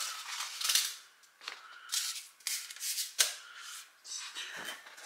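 Hands rubbing and handling a large cloth gaming mouse pad, making rustling swipes broken by several sharp snaps and taps. The sharpest snap comes about three seconds in.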